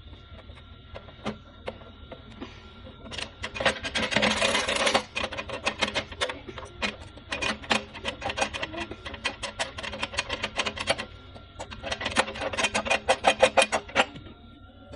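Hands-on mechanical work: fast runs of sharp clicks and rasping, densest about three seconds in and again near the end. Faint background music plays under it.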